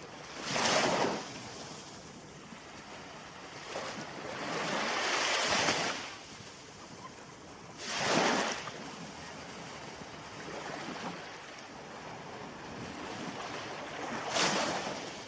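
Ocean waves breaking and washing in, over a steady hiss of surf. Four surges: a short one near the start, a longer one lasting about two seconds, another past the middle, and a short one near the end.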